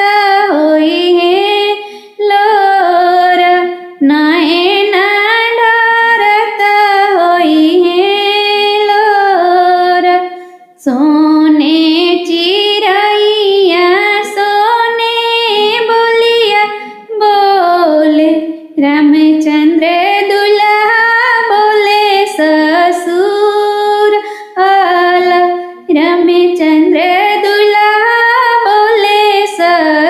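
A woman singing a Hindi folk wedding song solo, in phrases a few seconds long with short breaks between them.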